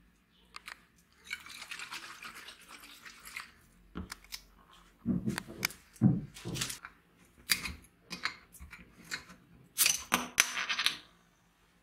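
A glass bottle being handled by gloved hands: rustling, then a run of sharp clicks and a few deeper knocks, with a louder hissing burst about ten seconds in.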